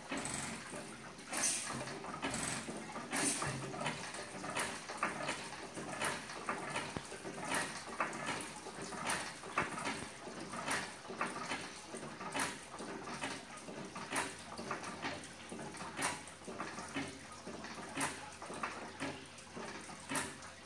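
1912 IHC Victor 4 hp hit-and-miss engine running unloaded, firing with a sharp report about every one and a half to two seconds and coasting between firings with lighter clicks. A steady splashing of cooling water over its screen runs underneath.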